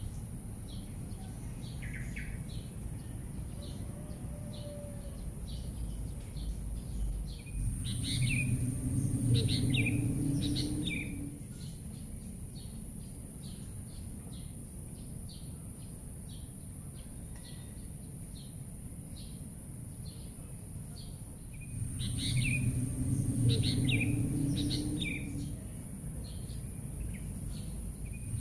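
Birds chirping: a steady run of short chirps, about two a second, over a low rumble of background noise that swells twice, each time with louder, busier calls, and a steady high hiss.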